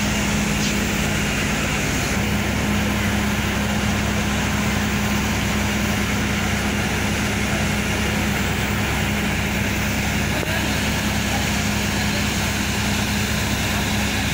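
Onboard machinery of a standing passenger train running with a steady drone and a constant low hum.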